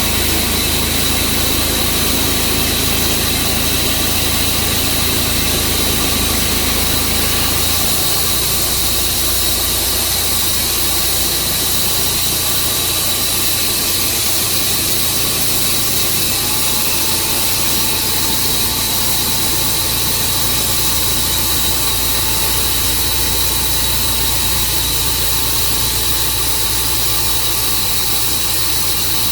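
Tru-Cut sawmill running as it saws through a bur oak log: a steady engine and cutting noise with a high whine over it. The low engine note drops about eight seconds in, and a thinner whine joins about halfway through.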